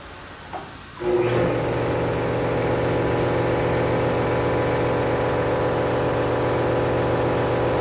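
Shop air compressor switching on about a second in and running with a loud, steady hum, building up air pressure.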